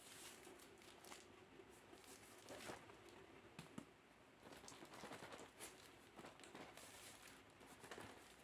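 Faint crinkling and rustling of plastic packaging being handled and torn open, in short irregular bursts.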